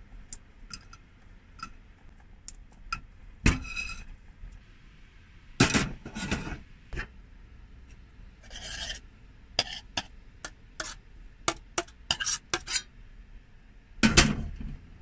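Kitchen handling sounds: sharp cracks and clicks of walnut shells being broken by hand, then a steel saucepan and spoon knocking and scraping against a bowl as food is spooned out, with a louder clatter near the end.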